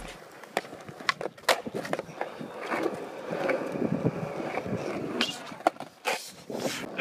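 Skateboard rolling on concrete, its wheels rumbling, with a string of sharp clacks and knocks from the board and wheels striking the ground and a ramp.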